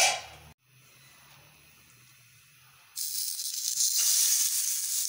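Halved tomatoes placed cut side down into hot oil in a frying pan: sizzling starts suddenly about three seconds in and runs on steadily. A brief loud noise comes right at the start.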